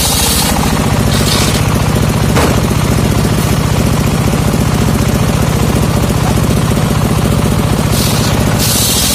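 Homemade circular table saw with a large toothed steel blade ripping trembesi (rain tree) timber; its drive motor runs steadily with a fast, even beat. A cutting hiss rises at the start and again near the end as wood is pushed through the blade.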